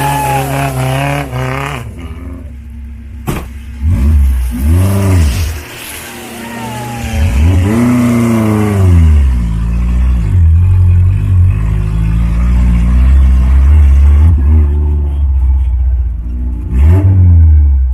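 Off-road jeep engine revving hard over rough ground, its pitch climbing and falling several times, with a sharp knock about three seconds in.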